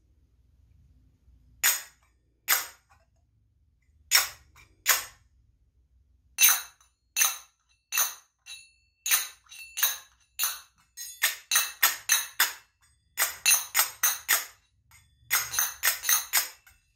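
Finger cymbals (zills) played with the clap stroke: struck flat and held together, so each hit is a short, damped clink rather than a sustained ring. A few spaced single claps at first, then faster runs of several claps a second in the second half.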